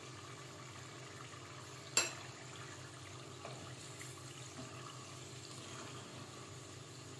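Rice turon (sugar-coated glutinous-rice spring rolls) deep-frying in a pot of oil, a steady sizzle as they are stirred. One sharp knock about two seconds in.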